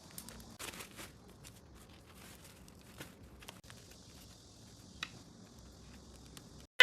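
Soft crinkling and rustling of toy packaging being handled during an unboxing, with scattered light clicks and taps.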